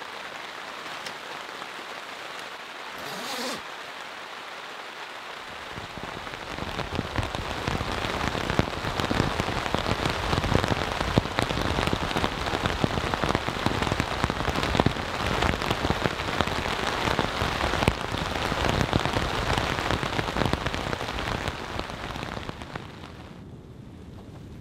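Rain falling on the fabric of a Pomoly hot tent, heard from inside: a light patter at first that becomes a heavy, dense downpour about six seconds in, then eases near the end.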